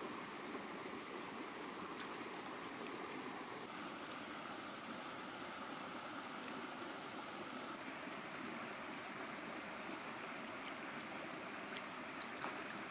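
Shallow stream water running steadily over rocks, with a few faint clicks.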